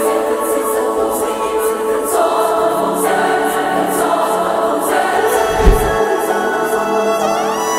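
Soundtrack music with choral voices held over sustained chords, a deep boom about two-thirds of the way through, and a rising sweep near the end.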